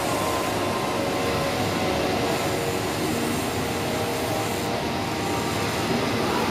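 Zünd flatbed digital cutter running, a steady even hiss-like machine noise as its cutting head works across printed sheets.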